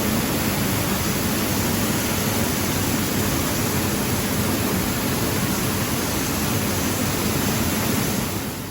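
Rice hulling and sorting machinery running: a steady rushing noise with a low hum beneath it.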